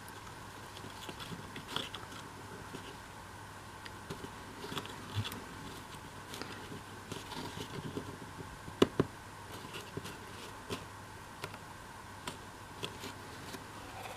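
Light clicks, taps and scrapes of laser-cut MDF model building pieces being handled and slotted together, with two sharper knocks just past the middle.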